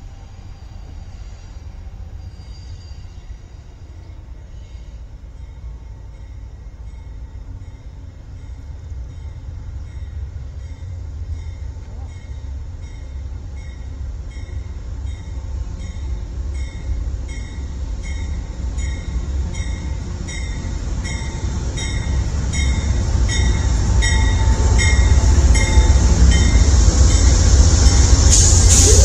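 Amtrak train arriving: a steady, evenly spaced bell-like ringing of about one and a half strikes a second over a deep diesel rumble, both growing louder as the train draws in alongside. A brief sharp noise near the end.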